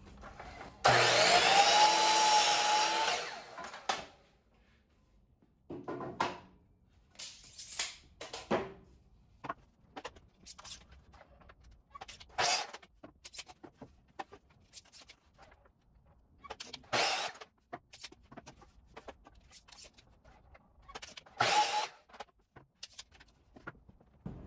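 Ryobi 10-inch compound miter saw spinning up and crosscutting a board, from about a second in for some three seconds, its motor whine steady through the cut. After it come several short bursts of the saw and knocks of boards being handled.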